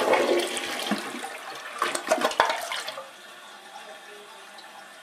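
Newly installed toilet flushing: a rush of water through the bowl for about three seconds, settling into the quieter steady hiss of the tank refilling. The flush is weak, with little water in the bowl.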